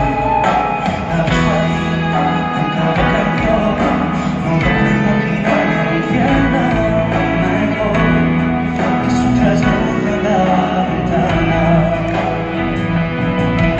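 Live pop-rock band playing with a male lead singer, loud through the arena PA, heard from the stands.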